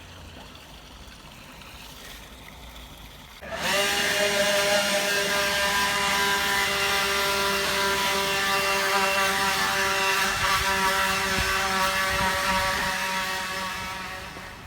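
Motor of a battery-powered Ryobi One+ 18V garden tool. It starts abruptly about three and a half seconds in, runs with a steady high whine, and fades away near the end.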